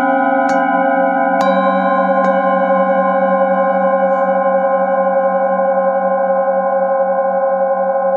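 Metal singing bowls ringing: a handheld bowl is struck with a mallet three times in the first two and a half seconds, then left to ring on together with the other bowls in a steady, layered hum whose low tones waver slowly.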